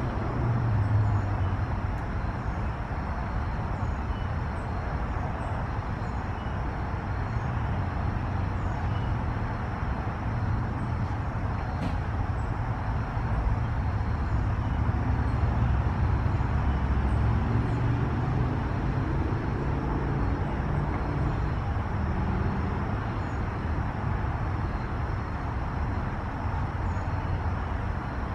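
Steady outdoor background noise, mostly a low rumble like distant road traffic, with faint high chirps scattered through it.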